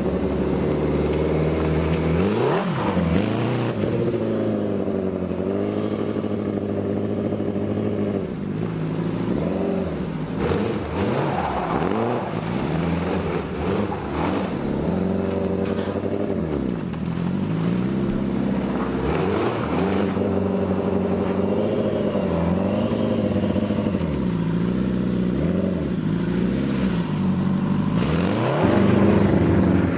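A motor vehicle engine revving, its pitch rising and falling again and again every few seconds.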